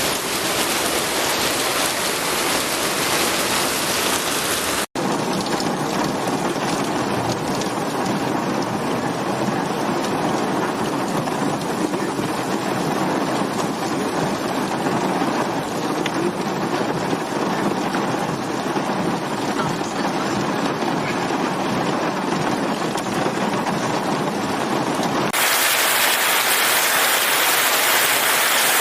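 Steady rain falling, an even rushing patter. About five seconds in it drops out for an instant and resumes with a different, fuller texture. Near the end it switches to a brighter, hissier rain sound.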